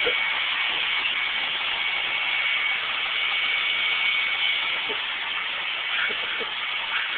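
Vacuum cleaner running steadily: a constant high whine over a rushing hiss.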